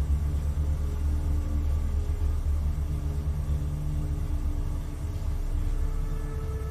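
Low, steady rumbling drone of dark ambient background music, with faint held tones over it; a higher held tone comes in near the end.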